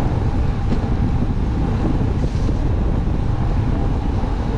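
Wind rushing over the microphone of a road bike descending at speed, a steady low buffeting that hardly changes.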